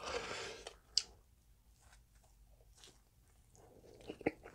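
Close-miked chewing of crispy breaded pork cutlet, crunchy and wet, with a burst of crunching at the start, one sharp click about a second in, then softer chewing that picks up again near the end.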